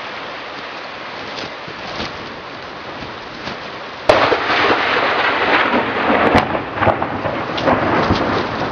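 Steady rain, then about four seconds in a sudden close thunderclap that crackles and rumbles on, loud, through the rest.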